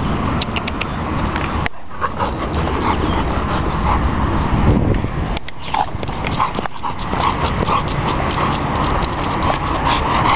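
A pit bull terrier panting close to the microphone, in quick rhythmic breaths that grow steadier in the second half, over a steady low rumble.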